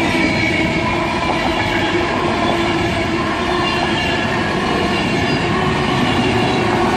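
Class 390 Pendolino electric train passing close by: a continuous rumble of wheels on rail, with a faint steady hum over it.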